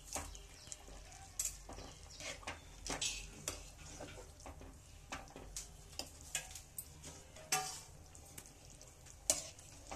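Steel ladle stirring vermicelli and vegetables in water in a large aluminium pot, with irregular scrapes and clinks against the pot.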